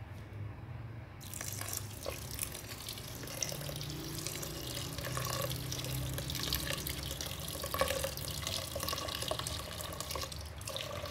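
Water poured from a plastic jug into a rice cooker's inner pot onto the rice, adding the cooking water. It is a steady splashing pour that starts about a second in and stops just before the end.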